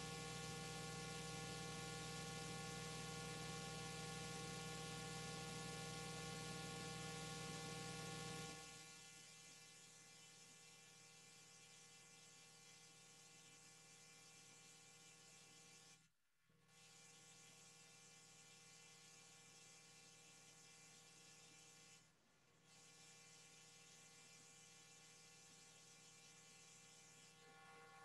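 Faint, steady electrical mains hum with hiss. It drops in level about eight seconds in and cuts out briefly twice later.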